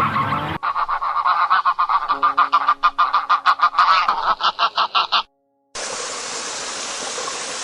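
A bird gives a rapid run of short, repeated calls, about four or five a second, for several seconds. A steady hiss follows near the end.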